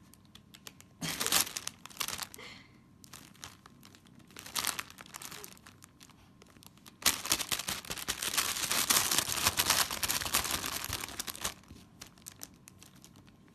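Clear plastic bag crinkling as a cat shifts and paws about inside it: scattered rustles at first, then a long dense stretch of crackling from about seven seconds in, thinning to a few small crackles near the end.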